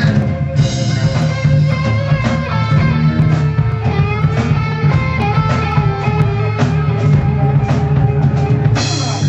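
A live band playing rock music with no vocals: a drum kit keeping a steady beat under bass and guitar.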